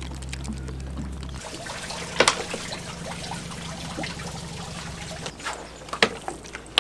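Water sloshing and trickling, with a low steady hum underneath and a couple of sharp knocks.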